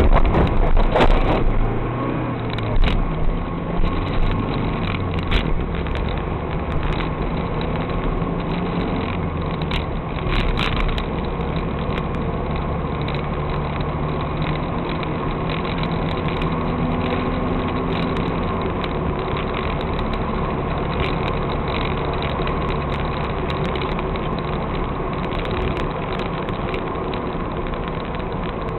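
Car engine idling steadily, heard from inside the cabin. In the first few seconds several sharp bangs come from artillery shells exploding some distance away, with fainter bangs near the middle.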